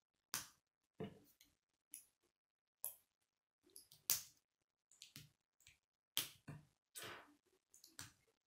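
Plastic K'nex connectors and rods clicking and snapping together as they are fitted by hand: a run of sharp clicks at irregular intervals, the loudest about four seconds in.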